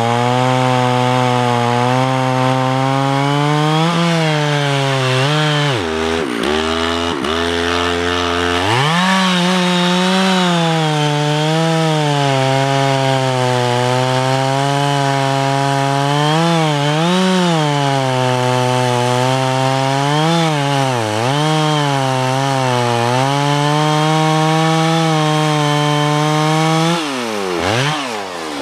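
Stihl MS660 chainsaw, a big two-stroke saw, running hard while cutting into a large chestnut oak trunk, its engine pitch dipping and recovering as the chain loads up in the wood. About six seconds in the revs drop low for a couple of seconds, then climb back to full cutting speed. Near the end the engine winds down.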